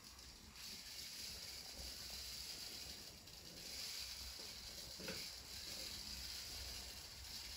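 Faint steady hiss, with a soft tap about five seconds in.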